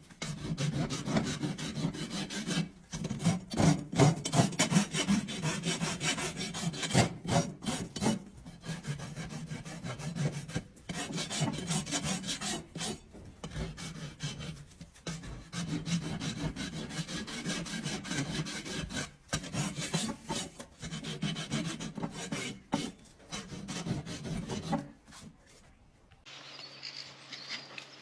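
A hoof rasp filing a draft horse's hoof in rapid back-and-forth strokes, with a few short pauses. It stops about 25 seconds in.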